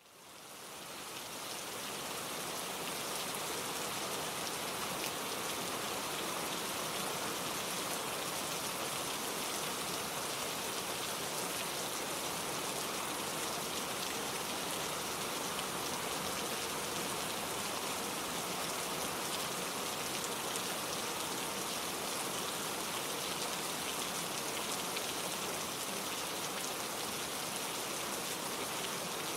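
Steady rainfall, a dense even hiss of many drops, fading in over the first two seconds.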